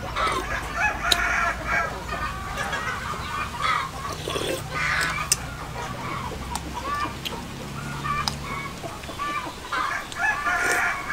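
Chickens clucking, with a rooster crowing near the start and again near the end, and a few light clinks of a metal spoon against a ceramic bowl.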